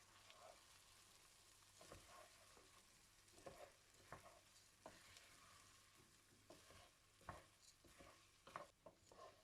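Washed basmati rice frying faintly in butter and oil in a pan while being stirred, with a steady soft sizzle and scattered scrapes and knocks of the stirring utensil against the pan.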